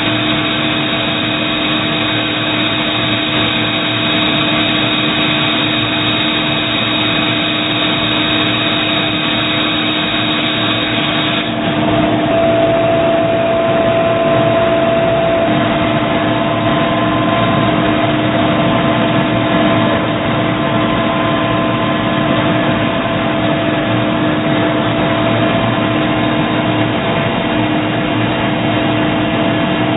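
Doosan Puma ST20G CNC lathe running: a steady machine hum with several held tones. About eleven seconds in the sound shifts: the high hiss falls away, a new tone comes in and it grows slightly louder.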